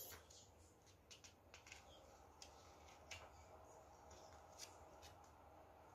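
Faint rustling and crinkling of a folded paper instruction manual being handled and turned over, a few soft scattered clicks over near silence.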